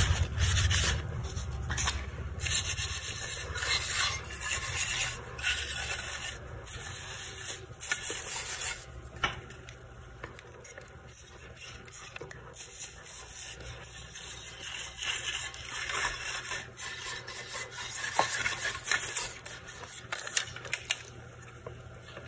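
Repeated, irregular rubbing and scrubbing strokes: graphics card parts being scrubbed clean of old thermal paste.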